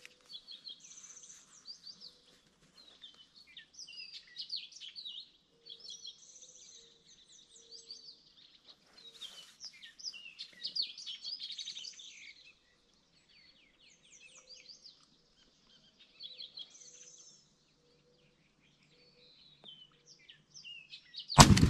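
Several songbirds chirping and singing, then near the end a single loud 12-gauge shotgun shot from a Benelli Super Black Eagle 3.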